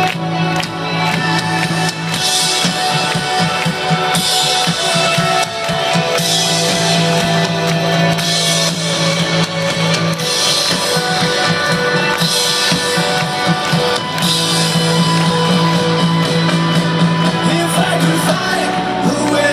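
Live rock band playing an instrumental passage of the song, guitar to the fore, loud and steady, with no lyrics sung.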